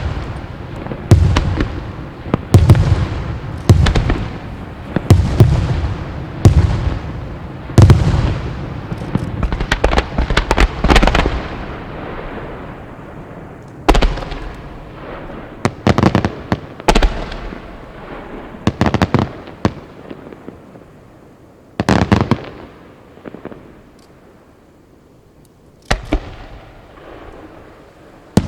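Wide starmine fireworks display: aerial shells bursting in quick succession with deep booms and crackle, roughly one a second for the first twelve seconds, then thinning to scattered bursts a few seconds apart.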